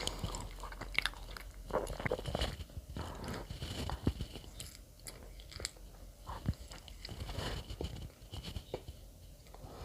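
A person biting and chewing bread close to the microphone: irregular small crunches and mouth clicks, busier in the first half.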